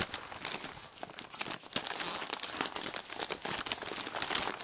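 Plastic mailing package being handled and pulled open, a dense run of crinkling and crackling that starts abruptly.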